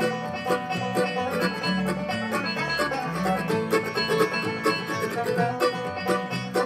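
Bluegrass band playing an instrumental passage, with banjo rolls out front over strummed guitar and upright bass.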